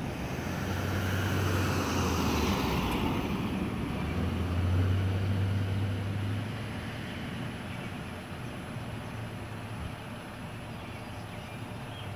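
Fire engine's engine running as it drives away up a lane: a low rumble, loudest about five seconds in, then fading with distance. A hiss falls in pitch over the first three seconds.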